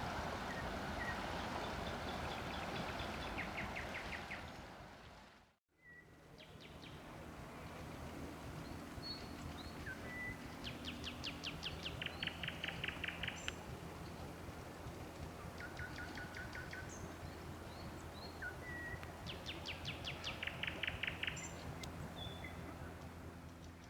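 Nightingale singing: phrases of rapidly repeated notes and short whistles, over a steady low hum. The first five seconds are a rushing noise that cuts off abruptly.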